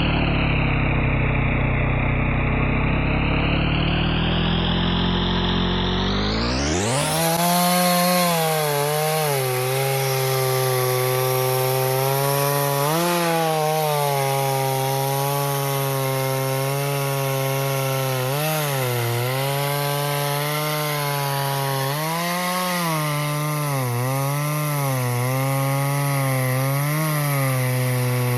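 Stihl MS 170 two-stroke chainsaw cutting firewood: the engine runs near full throttle, its pitch sagging and recovering again and again as the chain bites into the wood.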